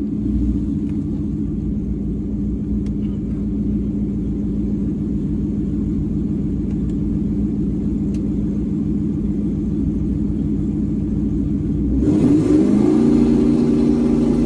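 Single-turbo Ford Mustang engine held at a steady high idle against the transmission brake and two-step launch limiter, loading the torque converter at its stall speed of about 3500 rpm without the car moving. About twelve seconds in, the note dips, then rises and grows louder, with added hiss.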